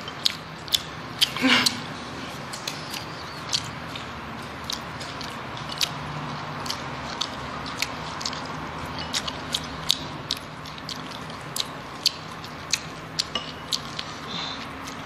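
Close-up mouth sounds of eating: irregular sharp clicks and smacks of lips and teeth working at a piece of food taken from chopsticks. A short rising squeak about a second and a half in.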